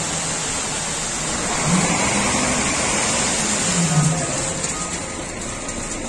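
Diesel engines of an asphalt paver and a tipper truck running together during paving, over a dense mechanical noise. One engine's note rises about two seconds in and drops back near four seconds.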